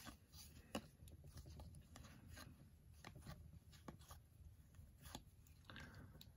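Near silence, with faint irregular ticks and slides of cardboard trading cards being thumbed off a stack, one at a time.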